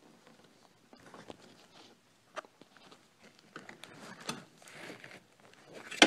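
Rustling and scattered small clicks of things being handled, with one sharp knock just before the end.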